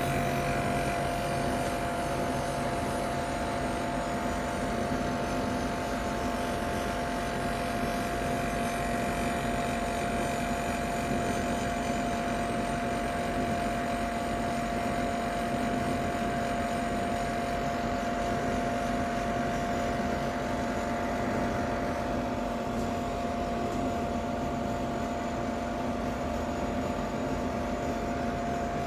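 Ninja Foodi 8-in-1 multi-cooker's fan running with a steady hum and a constant whine over it, the unit still cold; the owner finds its noise unbearable.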